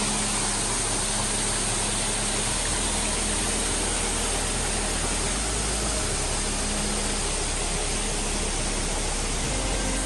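Steady rush of a mountain waterfall pouring into its rock pool, with a small cascade spilling into the pool below.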